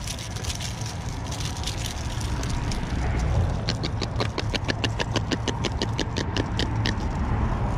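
A steady low rumble with a quick run of sharp clicks, about six a second, from about halfway through until near the end.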